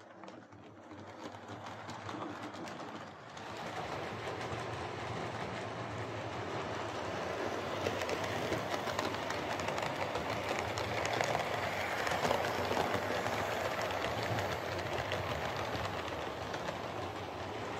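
Hornby OO gauge King class model steam locomotive running along the track: a steady motor-and-wheel rumble with fine clicking from the wheels on the rails, getting louder over the first few seconds and then holding steady. The freshly repaired locomotive is running again.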